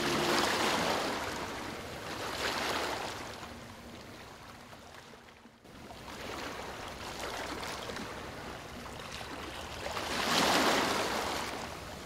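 Ocean waves washing in and drawing back, their hiss swelling and falling: one wave about half a second in, another around two and a half seconds, a lull near the middle, and the loudest wave near the end.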